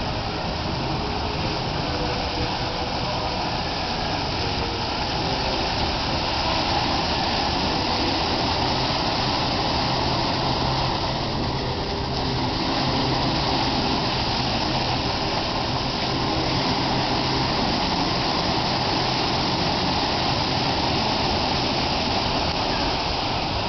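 Water gushing and splashing steadily over a wave-shaped fountain sculpture, easing briefly about halfway through before rising again.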